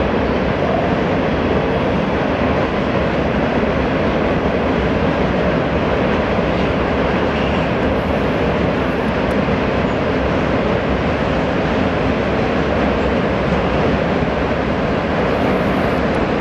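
Union Pacific freight train rolling across a steel truss railroad bridge, a steady loud rumble of the cars passing without a break.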